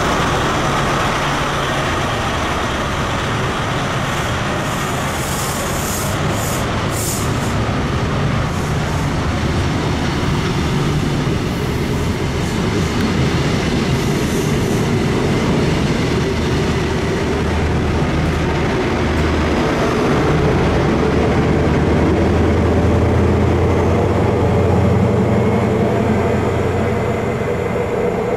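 Class 43 HST diesel power cars and coaches of Network Rail's New Measurement Train pulling out and rolling past: engine rumble with the rumble of wheels on rail. The low diesel engine note grows louder in the second half as the train draws away.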